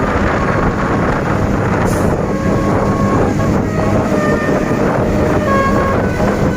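Bus running on the road: a steady low engine hum under loud road noise, with wind buffeting the microphone.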